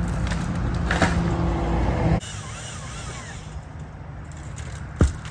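An engine running steadily. The sound cuts off abruptly about two seconds in, then a quieter engine rumble carries on, with one sharp knock near the end.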